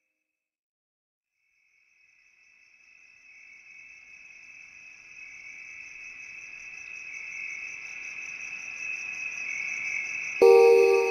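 Background soundtrack: after a couple of seconds of silence, a high, steady pulsing trill fades in and grows louder. About a second before the end, music with ringing mallet and chime notes comes in suddenly and loudly.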